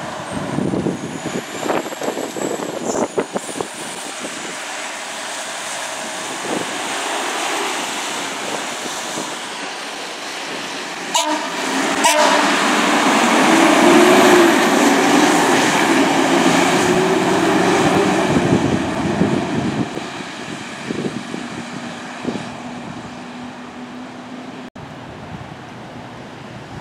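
A fire engine passing on an emergency response with its air horn sounding a long steady blast, loudest as it goes by about midway, over its engine and tyre noise, then fading as it moves off.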